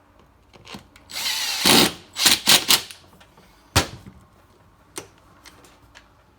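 Power drill driving screws into the two cast aluminium halves of a closing wheel, drawing them together over the new rubber tire. It runs for under a second, then gives three quick pulses, followed by a sharp click and a fainter one.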